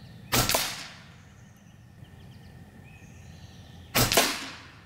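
Two shots from a .22 Hatsan Factor RC Sniper Long PCP air rifle, about three and a half seconds apart. Each is a sharp crack with a short fading ring.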